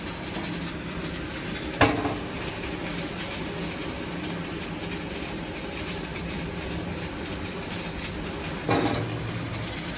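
Steady workshop background noise with a sharp metal clank about two seconds in and another metal knock with a brief ring near the end, as of steel pieces being handled or set down.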